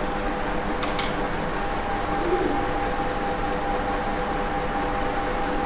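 Steady background hiss with a faint, even hum of a few steady tones; a faint click about a second in.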